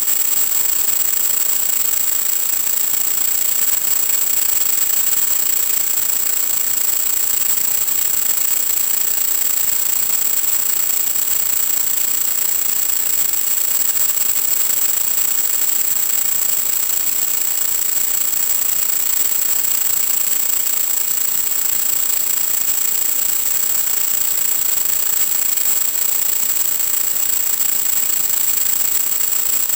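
Steady static hiss with a constant high-pitched whine, the noise of an empty audio channel on a 1.2 GHz analog FPV video link, not the plane itself.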